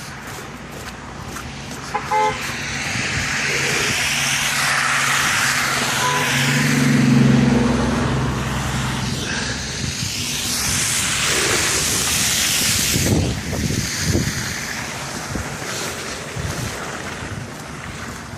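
Street traffic on snowy roads: the hiss of tyres swells and fades as vehicles pass, with a short car horn toot about two seconds in and a low engine hum from a passing vehicle around the middle.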